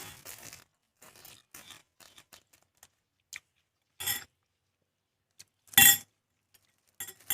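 Utensils clinking and scraping against dishes in a string of short, scattered clinks, the loudest a sharp clink about six seconds in.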